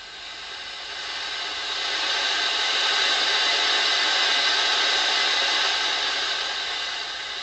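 Homemade transistor noise generator putting out a steady hiss of random noise from an amplified germanium junction. The hiss swells over the first two seconds, holds, and eases off near the end.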